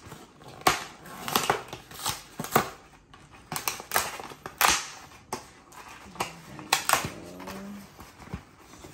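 A cardboard box being pulled and torn open by hand: irregular sharp cracks and tearing as the glued flaps and perforated tab give way. A brief voice sound comes about six seconds in.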